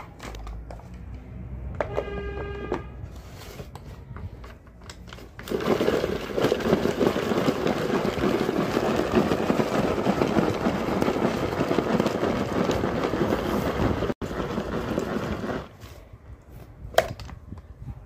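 Hand-operated plastic food chopper worked rapidly for about ten seconds, its blades spinning and chopping red onion inside the container. The chopping begins about five seconds in and stops a couple of seconds before the end.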